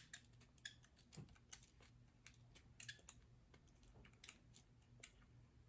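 Faint, irregular small clicks and ticks of a screwdriver working the takedown screw on a Browning Medalist pistol as it is tightened.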